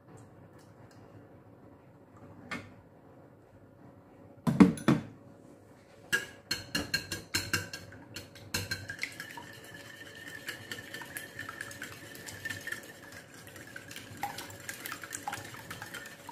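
Wire whisk beating raw eggs into melted butter in a glass bowl, its wires clicking and rattling against the glass, fast and uneven at first and then a dense steady clatter. A couple of loud sharp knocks come about four and a half seconds in, before the whisking starts.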